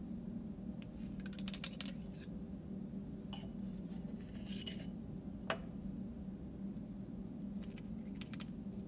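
Small clicks, taps and scraping of a glass test tube and a metal spatula being handled while baking soda is scooped into the tube, in several short clusters with one sharper click about halfway through, over a steady low hum.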